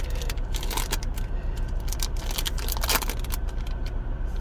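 Foil booster-pack wrapper crinkling and tearing as it is opened, in scattered crackles with a louder rip about three seconds in, over a steady low hum.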